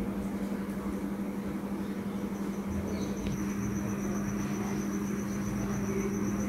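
Steady low electrical hum with faint room noise. A high, pulsing trill comes in about two seconds in and keeps on.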